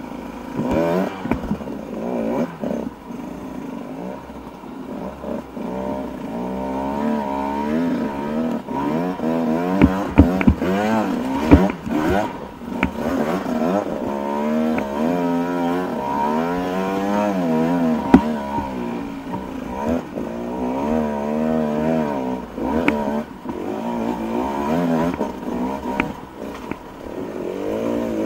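Dirt bike engine climbing a steep rocky track in low gear, its revs rising and falling constantly as the throttle is worked. Sharp knocks come now and then, the loudest about eighteen seconds in.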